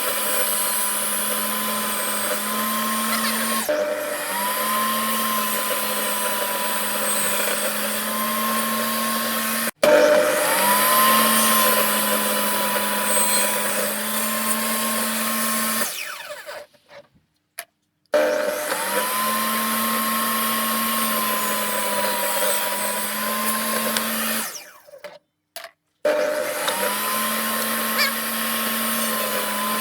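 Electric motor of a power tool running at a steady speed, a constant hum with a higher whine over it. It stops and restarts several times, twice dying away to silence, and the whine rises each time it spins back up.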